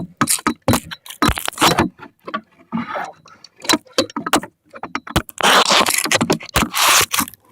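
Close handling noise: a run of sharp clicks, knocks and rattles, then about two seconds of rubbing and scraping near the end, as something stuck is worked loose close to the microphone.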